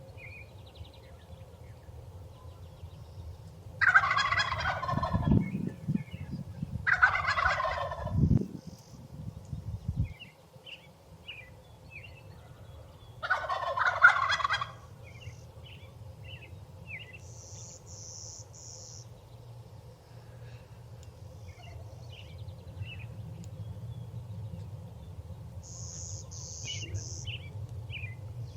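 Wild turkey gobbling: three loud, rattling gobbles, each about a second long, the last about six seconds after the second.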